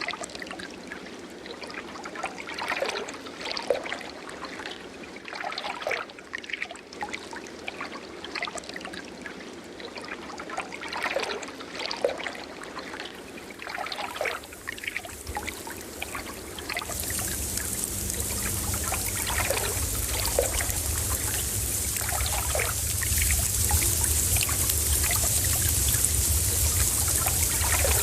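Water trickling and splashing in irregular little spurts; a little past halfway a steady, louder rushing hiss sets in and continues.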